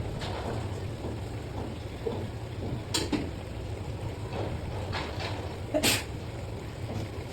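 Two sharp knocks, about three and six seconds in, among fainter handling noises over a steady low hum.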